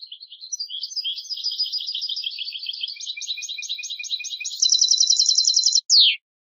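European goldfinch singing one continuous song phrase of quick high twitters and trills. It closes with a faster, louder even trill and a short downward note about six seconds in.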